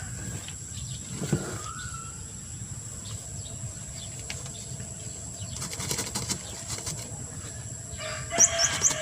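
A rooster crowing about eight seconds in, a loud pitched call that falls at its end, with a short rising chicken call about a second and a half in. A quick cluster of small clicks around six seconds in.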